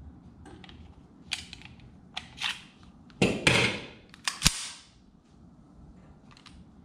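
Springfield Armory 1911 .45 pistol being handled: a few light metal clicks, then the slide drawn back with a scrape about three seconds in and let go, snapping forward with a sharp metal clack.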